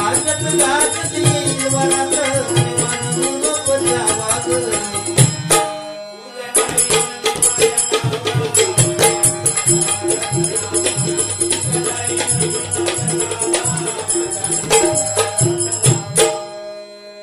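Bhajan accompaniment: harmonium with fast hand-drum strokes and jingling percussion. It breaks off briefly about six seconds in, picks up again, and stops about a second before the end.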